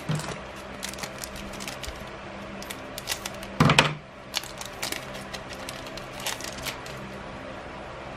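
A foil Magic: The Gathering booster pack wrapper crinkling and crackling as it is handled and opened, with cards sliding out. There is one louder burst about three and a half seconds in.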